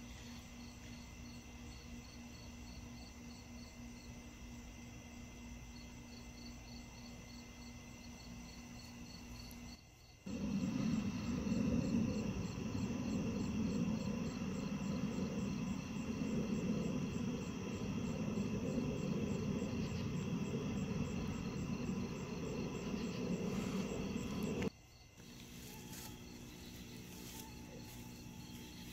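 Night insects, crickets among them, chirping steadily in several high, even tones, one of them pulsing several times a second. About ten seconds in, a much louder low rough noise starts suddenly over the chirping and cuts off just as suddenly near the end.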